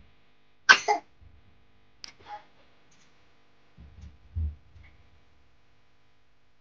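A few short clicks and soft knocks from a bamboo winnowing tray being shaken over a steel bowl and set down. There is one sharp knock about a second in and dull thumps around four seconds in.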